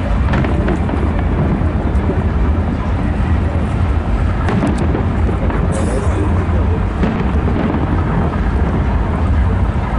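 Fireworks display: many bursts merging into a continuous low rumble, with a few sharp crackles in the middle.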